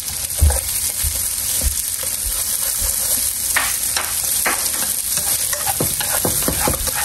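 Garlic and onion sizzling in hot oil in a frying pan, with a utensil stirring and now and then scraping or knocking against the pan.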